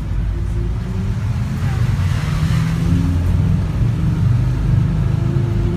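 Engine of an open-sided safari taxi truck running steadily as it drives, heard from the open passenger benches, with a brief hiss about two seconds in.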